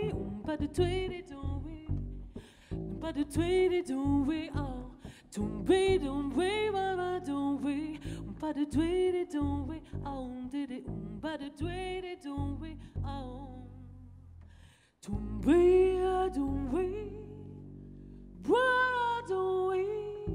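A woman singing with vibrato into a microphone over a double bass playing low plucked notes. The music nearly stops about three-quarters of the way through, then the voice comes back in strongly.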